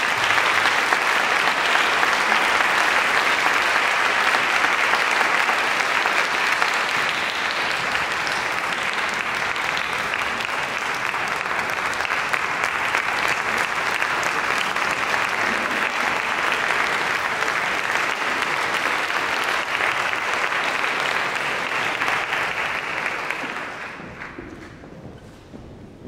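Large audience applauding steadily, the clapping dying away over the last few seconds.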